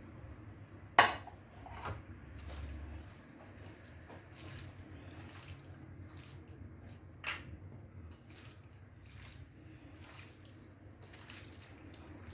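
Quiet kitchen handling sounds: a sharp clink about a second in and another a few seconds later, with soft irregular taps and clicks in between over a low steady hum.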